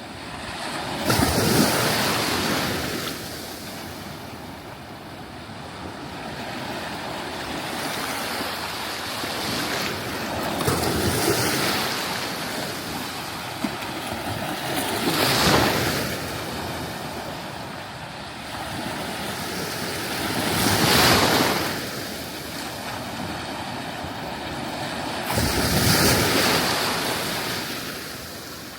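Sea waves breaking and washing up a sandy beach over a steady hiss of surf. Five waves surge in, several seconds apart.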